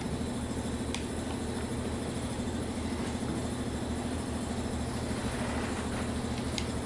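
A small motor running steadily with a hiss of air, with two light clicks, one about a second in and one near the end.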